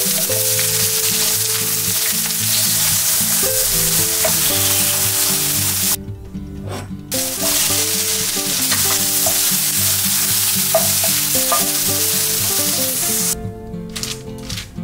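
Sliced onions, and then onions with strips of red and yellow bell pepper, sizzling in hot oil in a frying pan. There is a brief break about six seconds in, and the sizzling cuts off about a second before the end.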